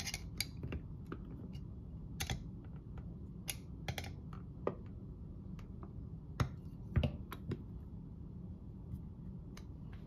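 Small metal clicks and taps from a thin steel tool working a part inside an Emtek mortise lock's case to seat it back in place. They come irregularly, with the sharpest click about seven seconds in.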